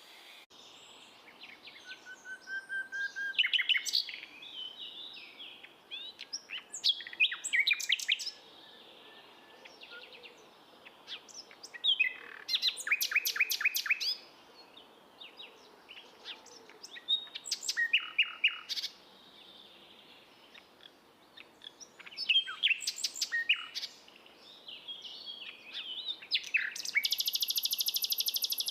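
Songbird singing in short repeated phrases of quick chirps and whistled notes, a phrase about every five seconds, the last one ending in a long buzzy trill.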